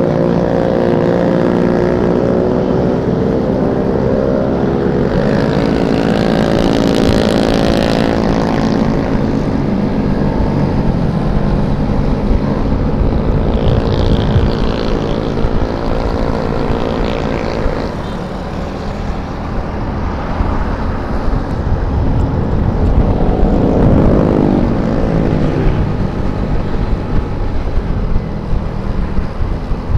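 Small automatic motor scooter's engine running at riding speed, its note rising and falling with the throttle: it eases off about eighteen seconds in and picks up again a few seconds later. Wind rumbles over the handlebar-mounted camera's microphone.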